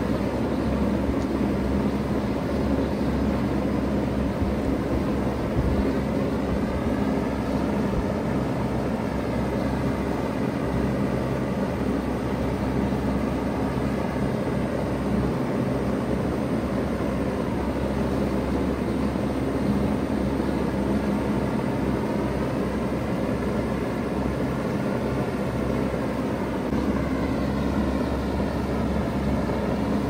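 2002 Bard 3-ton wall-mounted heat pump running steadily in cooling mode, its compressor humming under the even rush of the condenser fan.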